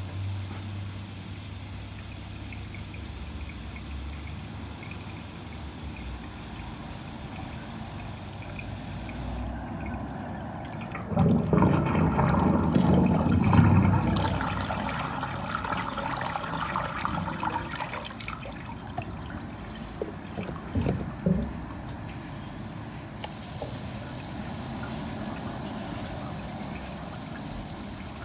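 Water running and trickling in a drain pipe, with a louder gush lasting a few seconds about eleven seconds in and a few short spurts later.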